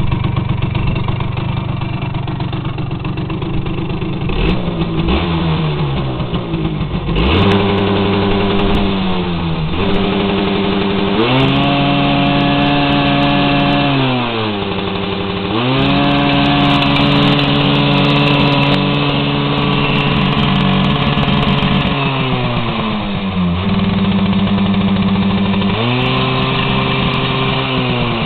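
Simson SR50 scooter's 50 cc single-cylinder two-stroke engine, through an aftermarket Akrapovič-branded silencer. It idles, then is revved up again and again; each time the pitch holds flat at the ignition rev limiter, crackling while it is held, before dropping back.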